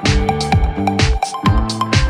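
Electronic background music with a steady drum beat, bass and keyboard notes.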